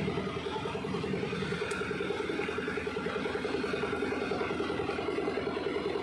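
Diesel engine idling steadily with an even, rapid pulse.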